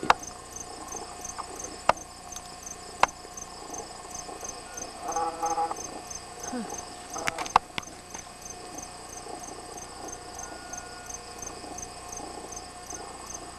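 Crickets chirping steadily in an even rhythm, about two chirps a second, with a few sharp knocks of camera handling.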